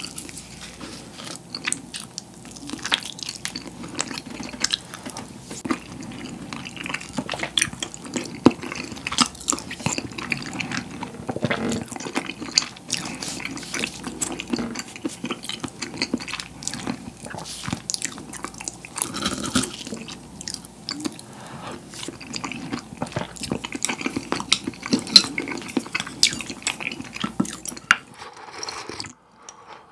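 Close-miked eating sounds: a mouthful of rice in green tea with salted pollock roe being chewed and swallowed, with many small clicks of utensils against the bowl. Near the end the tea is drunk straight from the bowl.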